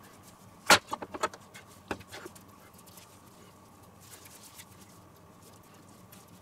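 Hands shaping soft pizza dough into balls on a floured wooden board: a sharp slap about a second in and a few lighter pats and knocks, then only faint kneading and handling.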